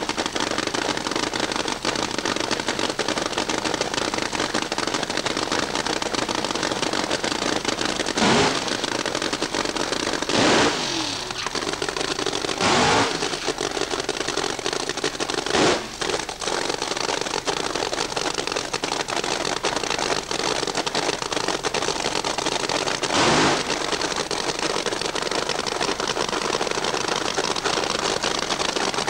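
Drag-racing funny car engine idling with a rough, crackling run, blipped five times in short, sharp revs. After the second rev the pitch falls back down.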